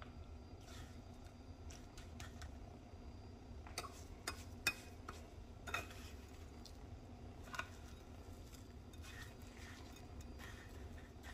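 Metal fork clinking and scraping against a glass pie plate while a chicken cutlet is pressed into panko breadcrumbs: faint scattered ticks, with a few sharper clinks in the middle.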